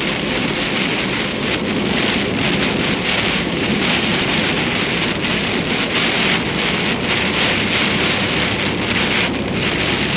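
Heavy rain beating steadily on a moving truck during a storm, a dense, loud hiss.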